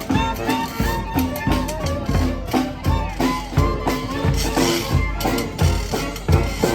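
Street brass band playing a lively tune over a steady drum beat of about two hits a second.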